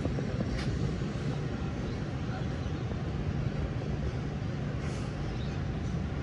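Steady low outdoor rumble, mostly wind on the microphone.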